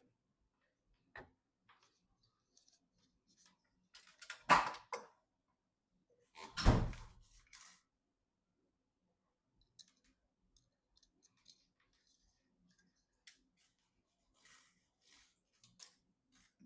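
Handling noise of PC parts being worked on by hand: scattered small clicks and rustles, a clatter about four and a half seconds in and a heavier knock about two seconds later.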